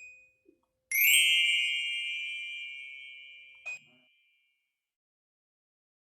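A short electronic beep, then about a second in a single bell-like ding that rings out and fades over about three seconds, with a short click near its end.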